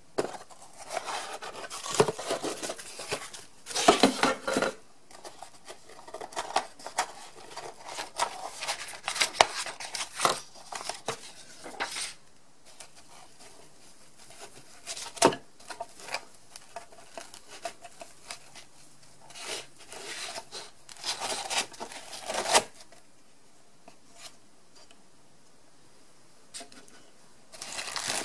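Packing materials being handled as a lamp is unboxed: plastic wrapping rustling and crinkling, with scattered sharp knocks and clicks as pieces are lifted out of a foam-lined cardboard box. The handling comes in irregular bursts with quieter pauses between them.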